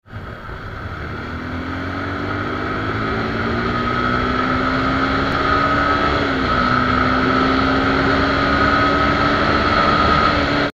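Suzuki Gixxer SF 250's single-cylinder engine running under hard acceleration on the road, its note climbing steadily in pitch and getting louder, with a brief dip in pitch about six seconds in.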